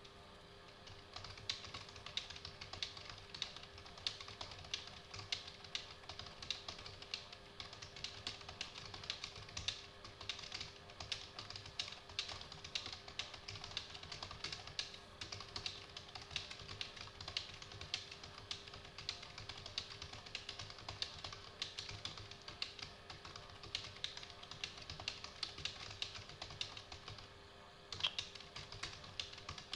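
Computer keyboard being typed on steadily at a relaxed pace: a fast, even run of key clicks, several a second, with a brief pause near the end.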